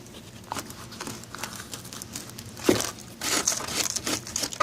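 Irregular rustling and crinkling with scattered clicks and a sharper knock about halfway through: handling noise of things being moved about.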